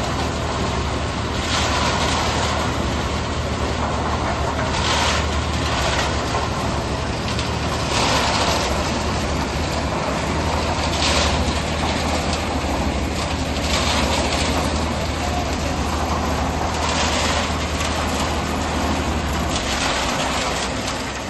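Tractor-mounted self-loading concrete mixer running: a steady low engine drone with a swishing surge about every three seconds.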